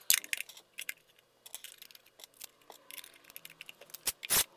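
Light clicks and taps of a metal guitar-pedal enclosure and its back plate being handled and fitted together, with a couple of louder knocks near the end.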